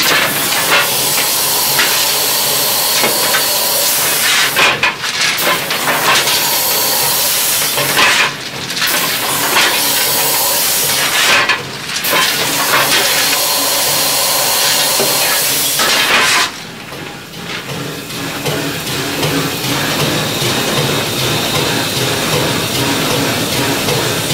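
Steam locomotive hissing steam loudly inside the cab. The hiss drops off briefly about four times and comes back.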